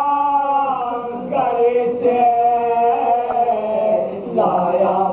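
Several men reciting an Urdu marsiya together in soz style, unaccompanied, in long drawn-out held notes. The melody shifts to a new note about a second in and again near the end.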